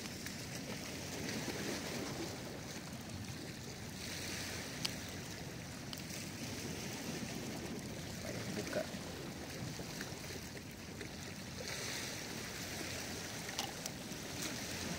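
Steady wash of sea water lapping against a rocky shore, with a few faint clicks.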